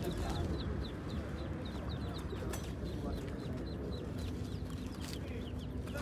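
Caged chickens clucking over a low, steady murmur of market crowd noise. Short high chirps from small birds repeat about three times a second throughout.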